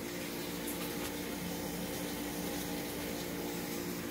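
Steady hum and water hiss of reef-tank pumps and circulating water, holding an even level with a low humming tone.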